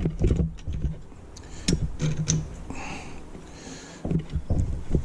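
Scattered metallic clicks and knocks of brake pads and caliper hardware being handled and fitted into a car's rear disc brake caliper, with a few duller thuds.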